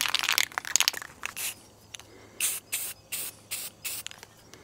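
A few clicks and rattles, then an aerosol spray can sprayed onto the end of a length of metal strut in short bursts, about four a second, from about halfway in.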